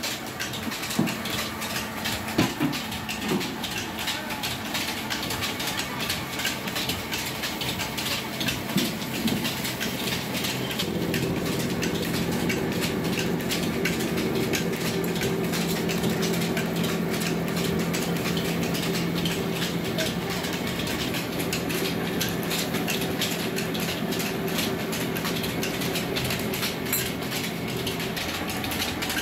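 Small rice milling machine running with a dense, rapid rattling clatter. About ten seconds in, a steady hum with two held tones comes in and stays.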